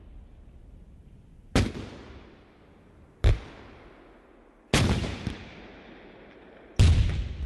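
Four gunshots, irregularly spaced one to two seconds apart, each with an echoing tail that dies away.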